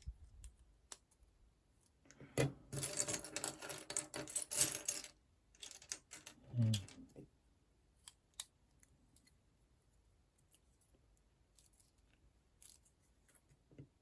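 Small plastic building bricks rattling and clicking as they are handled, with a dense burst of rattling for about three seconds, then scattered single clicks.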